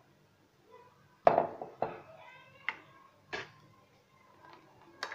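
A plastic ladle knocking against glass and plastic bowls about four times while batter is scooped out, the first knock the loudest.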